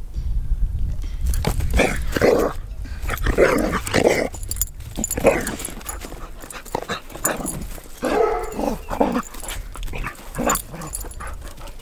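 Two dogs play-fighting, barking in short bursts every second or two with brief pauses.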